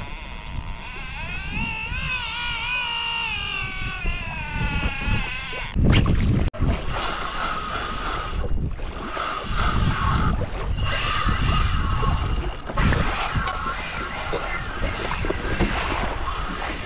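Fishing reel drag screaming as a hooked fish runs off line: a wavering whine with several overtones. About six seconds in there is a loud burst, then a noisier reel zing mixed with water rushing past the kayak.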